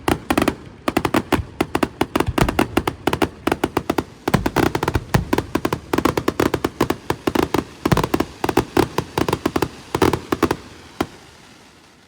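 Fireworks display in a dense barrage of rapid bangs and crackles, many reports a second, thinning out and fading after about ten seconds.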